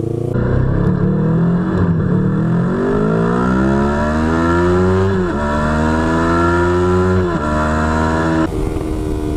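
Yamaha YZF-R3's parallel-twin engine through a DG V2 full aftermarket exhaust, accelerating under load. Its pitch climbs for about five seconds, then drops sharply at two upshifts, about five and seven seconds in.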